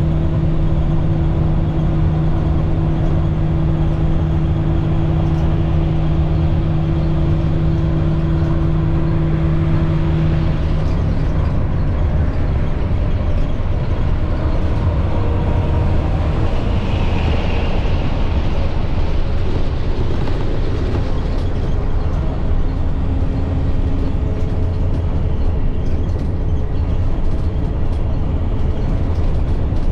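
Inline-six MaxxForce DT diesel engine of a 2010 IC CE300 school bus running under way, with rumble and road noise inside the bus. A steady drone sounds over it and stops about ten seconds in.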